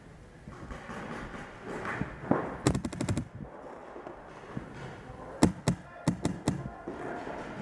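Paintball markers firing: a quick string of about six shots around three seconds in, then about five more shots over roughly a second a couple of seconds later.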